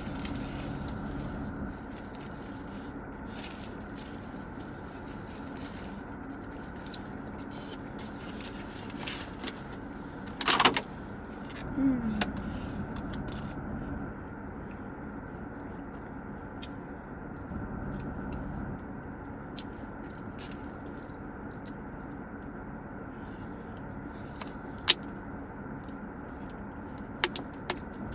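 Steady hum of a running car heard inside its closed cabin, with small clicks and rustles of eating and food wrappers. A short loud crackle comes about ten seconds in, followed by a brief falling tone.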